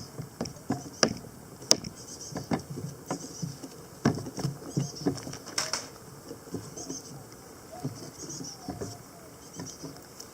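Irregular light clicks and knocks of a utensil against a small metal billy pot, more frequent in the first half, with small birds chirping in the background.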